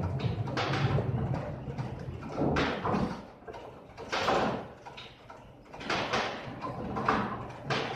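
Bowling alley noise: balls rumbling down the lanes and pins clattering, with several irregular knocks and crashes a second or two apart.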